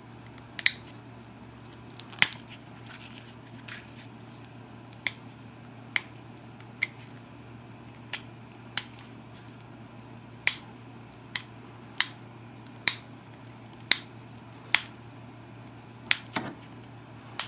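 Copper-tipped pressure flaker snapping small flakes off the edge of an obsidian biface: sharp single clicks, irregularly spaced, roughly one a second, as the edge is cleaned up. A steady low hum runs underneath.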